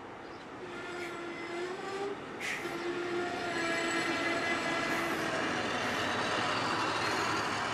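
Infrastructure evaluation vehicle IEV100 running through a station and passing close by. Its running noise grows steadily louder as it nears, with a faint wavering hum under it and a single sharp clank about two and a half seconds in.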